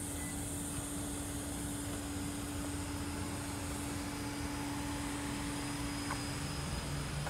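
Steady outdoor mechanical hum over a wide noise background, with one constant low tone throughout and a second, lower tone joining about six seconds in.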